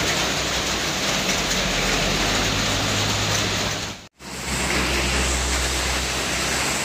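Steady heavy rain falling on the roadway, with vehicle engines running and tyres on the wet road as traffic passes. The sound drops out abruptly for a moment about four seconds in, then resumes.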